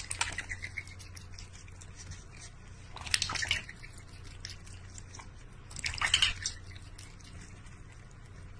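Water splashing and dripping in a stainless steel bowl as a duck dabbles its bill in it, with a cat lapping from the same bowl. Light drips run throughout, with two louder splashes about three and six seconds in.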